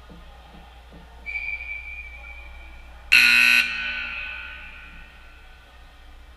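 A steady high whistle blast lasting about a second and a half. It is followed by a loud, short electric horn blast of about half a second, which echoes away in a large hall: a scoreboard horn at a game stoppage.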